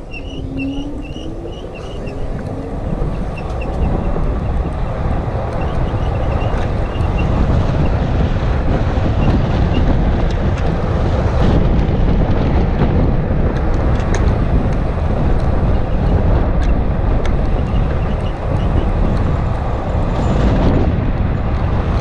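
Wind rushing over the microphone, with road and tyre noise from a Citycoco 1000 W electric scooter riding along a street. It grows louder over the first few seconds as the scooter picks up speed, while a faint whine from the electric motor rises in pitch.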